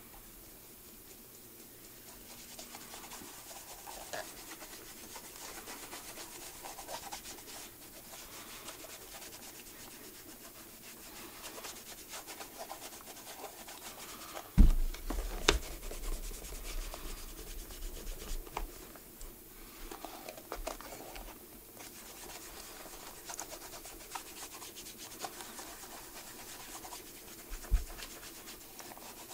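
Hand work on a shoe: steady scratching and rubbing, with two sharp knocks close together about halfway through and another thump near the end.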